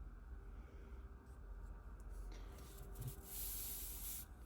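Faint rustle of the model kit's paper instruction sheet being handled, starting about two seconds in and stopping just before the end, over a low steady room hum.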